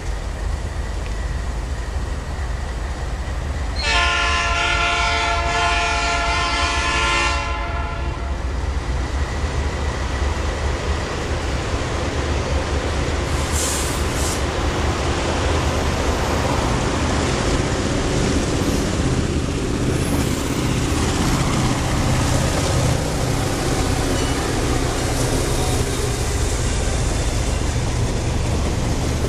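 A freight train's cars roll past on the rails with a steady heavy rumble and clatter. A multi-chime locomotive horn sounds for about four seconds, starting about four seconds in.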